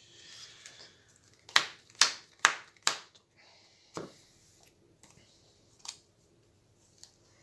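A small deck of card-game cards knocked against the tabletop four times, about half a second apart, as it is squared up, followed by two softer single card clicks.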